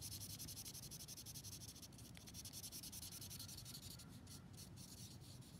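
Faint scratchy rubbing of charcoal on drawing paper in quick, repeated short strokes, shading a dark area.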